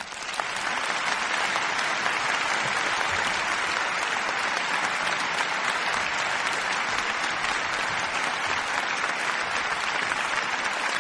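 Audience applause, building over the first second and then steady and dense.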